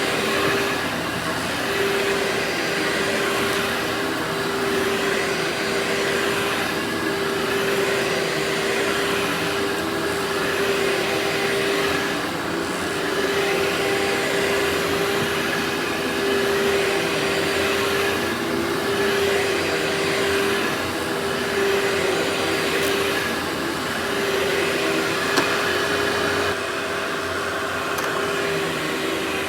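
Workhorse vacuum cleaner running steadily: a constant motor hum under a rush of suction air that swells and eases every couple of seconds as it is worked back and forth.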